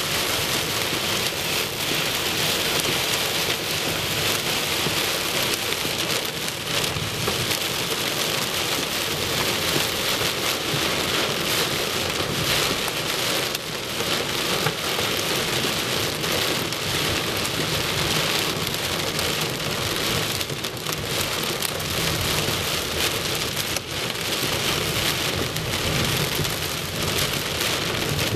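Heavy rain and hail drumming steadily on a car's roof and windshield, heard from inside the cabin as a dense, unbroken patter of impacts.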